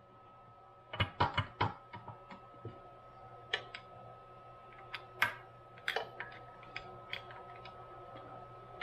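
Scattered light metallic clicks and taps of a ball screw bearing block and its housing being handled and fitted, with small bolts started by a hex driver. There is a bunch of clicks about a second in and another around five to six seconds in, over a faint steady high whine.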